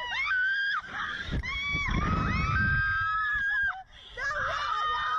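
Two women screaming on a Slingshot ride: a string of long, high-pitched held screams, briefly breaking off a little before four seconds in, with a low rumble under them about two seconds in.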